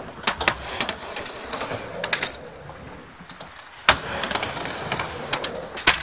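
Skateboard wheels rolling on ramp and concrete, with several sharp clacks of boards striking the ramp and its coping; the loudest clack comes about four seconds in.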